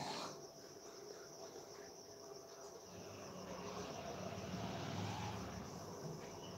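Steady high-pitched chirring of crickets, with a low rumble that swells about three seconds in and eases near the end.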